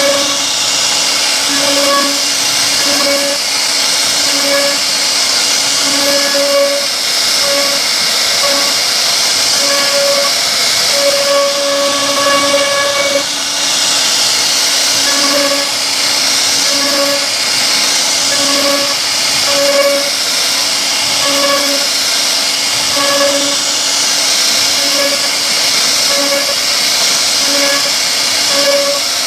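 CNC wood router running and cutting wood: a steady loud hiss with short humming tones that come and go as the bit cuts.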